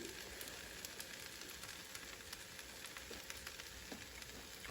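Fried rice sizzling faintly in a frying pan, with a few soft crackles.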